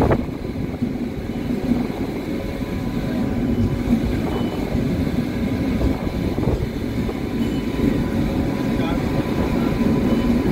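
Passenger train in motion: a steady low rumble of the coach running on the track, with a single knock right at the start.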